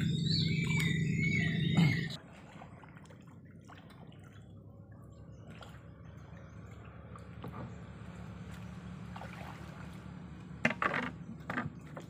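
A loud steady low hum that cuts off about two seconds in, then quiet lapping and dripping of river water around a small wooden boat, with a few sharp knocks near the end.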